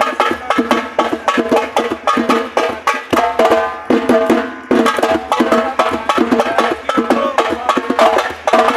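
Music driven by a drum beaten rapidly, about four to five strikes a second, with sustained pitched tones over it.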